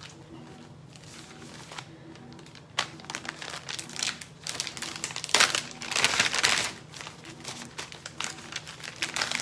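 Plastic drink-mix packets and a plastic bag crinkling as they are handled and packed, starting about three seconds in and loudest around the middle.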